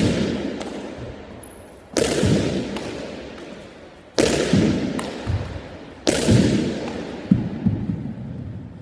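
A pitching-machine ball thrown hard against a wall: four loud bangs about two seconds apart, each ringing out in a long echo around the bare room. Softer knocks come between them.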